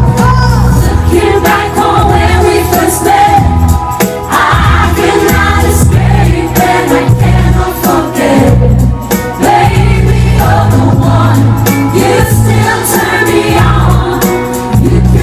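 Live pop music, loud: a female vocal group singing a ballad chorus together in harmony over a backing track with a strong, steady bass line.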